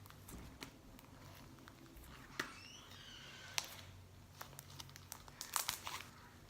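Slime being kneaded and stretched by hand: scattered small sticky clicks and pops, a few of them sharper about two and a half, three and a half and five and a half seconds in.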